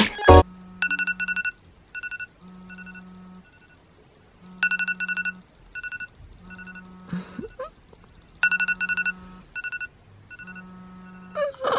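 iPhone alarm ringing: a phrase of quick electronic beeps that repeats about every four seconds.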